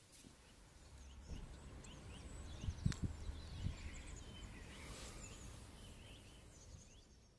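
Birds chirping in many short, quick calls over a low background rumble, with a sharp knock or click about three seconds in.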